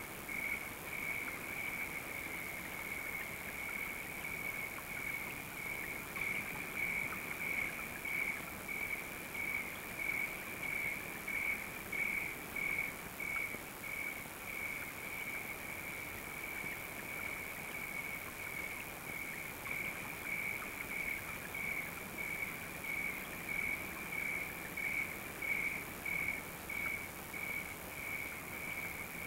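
Crickets chirping in an even, high-pitched rhythm of about two chirps a second, over a faint hiss.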